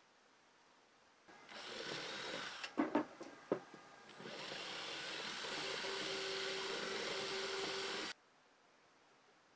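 Black+Decker cordless drill boring through an old wooden shovel-handle grip, running in two spells with a few sharp knocks between them about three seconds in. The second run is steady and cuts off suddenly near the end.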